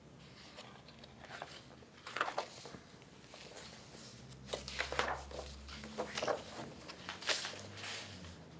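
Paper handling: book pages and loose sheets of paper being turned and shifted, a series of short rustles and crinkles.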